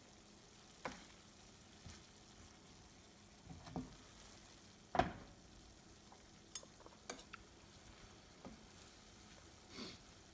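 Pork and long beans stir-frying in red curry paste in a pan: a faint steady sizzle, broken by scattered spatula knocks and scrapes against the pan, the loudest about halfway through.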